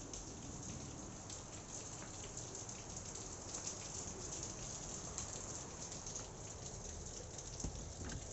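Faint, steady hiss of background noise with scattered light ticks.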